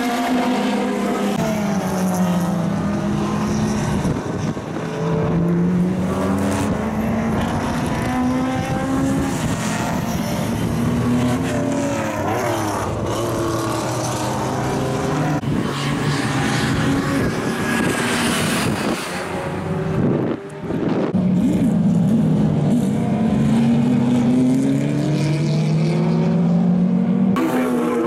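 Several classic racing car engines running hard on track, their notes overlapping and rising and falling in pitch as the cars accelerate, change gear and pass by.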